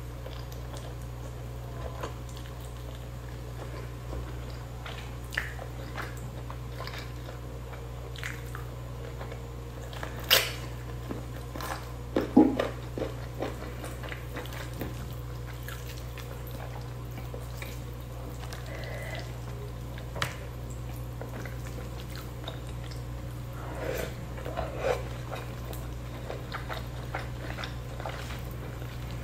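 Close-miked eating of spicy chicken by hand: soft chewing, lip smacks and small clicks of fingers pulling meat and leaves, with a few sharper mouth noises about ten and twelve seconds in, over a steady low hum.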